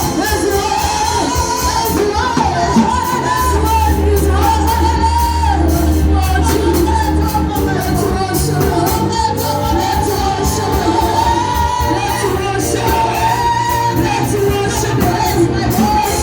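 Gospel praise-and-worship singing with band accompaniment: a lead melody over held bass notes that change every few seconds, with a steady beat.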